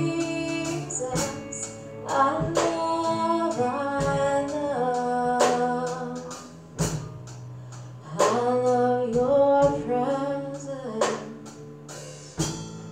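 Live worship band: a woman singing a melody over guitars and a drum kit, with drum and cymbal hits. The music thins out over the last couple of seconds, with one last hit near the end.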